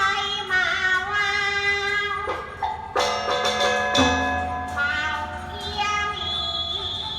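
Teochew (Chaozhou) opera singing: a high voice holding long, wavering notes over instrumental accompaniment, with a sharp percussion strike about three seconds in.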